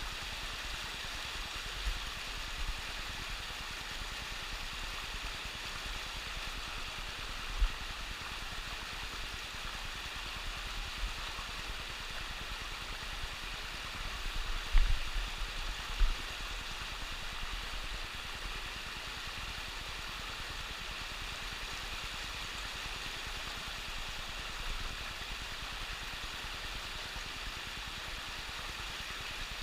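Mountain stream rushing steadily over rocks, an even hiss of running water. A few brief low bumps break through, loudest about halfway.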